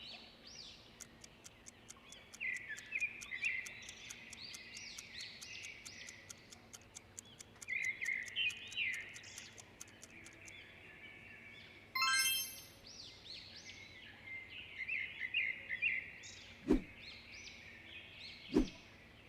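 Small birds chirping and twittering in a nature-ambience recording. A fast, even run of faint ticks runs through the first half, a brief high ringing sound comes about twelve seconds in, and two sharp clicks come near the end.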